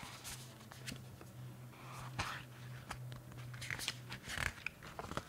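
Pages of a paperback picture book being turned by hand: soft paper rustles and crinkles, with a faint low hum underneath that stops about four seconds in.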